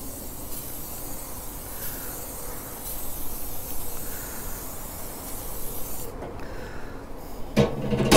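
Aerosol cooking-oil spray hissing in several long bursts onto a kamado grill's cooking grate, coating it with oil for seasoning. A brief louder sound comes near the end.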